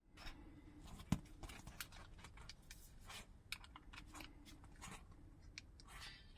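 Faint handling of packaging: scattered clicks, taps and light scraping, with one sharper knock about a second in.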